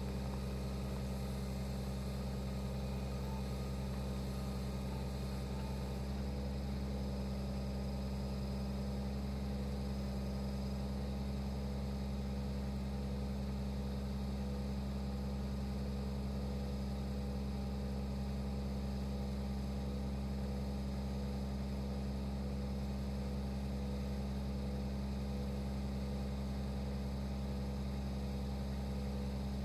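A 25-horsepower LS compact tractor's diesel engine idling, a steady low drone at an even pitch.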